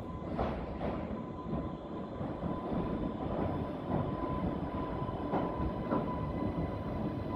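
Island Line Class 484 electric train pulling slowly into the platform: a low rumble of wheels with a steady whine, and a few clunks from the wheels on the track.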